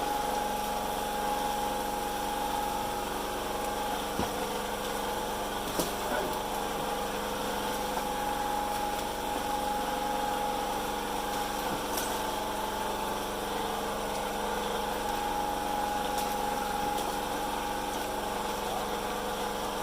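An engine running steadily at an even speed, a constant hum holding a few fixed tones, with a few faint clicks over it.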